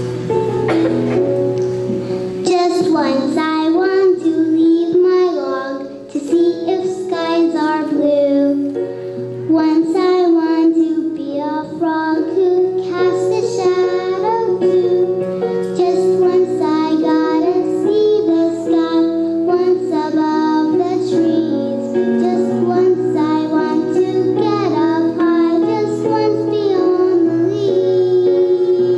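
Young children singing a song with musical accompaniment.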